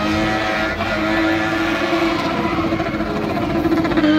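BMW M20 straight-six engine of a spinning car held at high, nearly steady revs, with a slight dip in pitch near the end.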